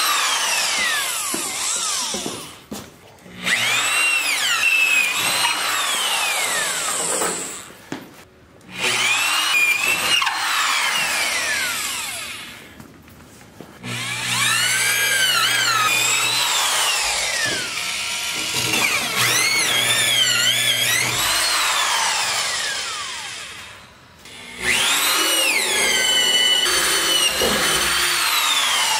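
DeWalt right-angle drill with a spade bit boring holes through wooden studs for wiring: about five runs with short pauses between, the motor's whine rising and falling as the bit bites and breaks through.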